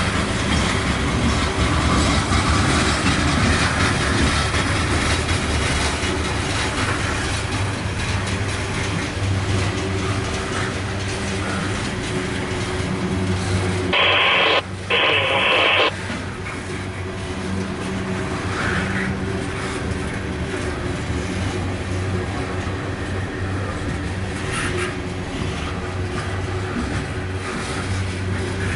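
Loaded coal hopper cars of a freight train rolling past close by, a steady rumble of steel wheels on rail. About halfway through, a loud burst of hiss lasting about two seconds, broken once, cuts across the rolling sound.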